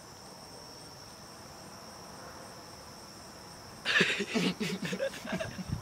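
Crickets chirring steadily in a high, even tone. About four seconds in, a person breaks into a loud fit of coughing and spluttering after swallowing a spoonful of dry cinnamon.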